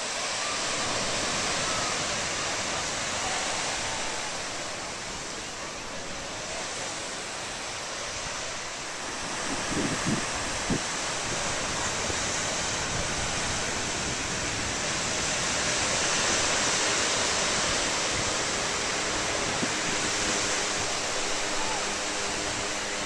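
Small waves breaking and washing up on a sand beach: a steady hiss of surf with wind on the microphone, and a few brief low bumps from the wind about ten seconds in.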